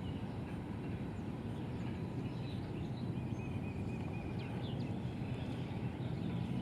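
Steady low outdoor background noise, with a few faint bird chirps between about two and five seconds in.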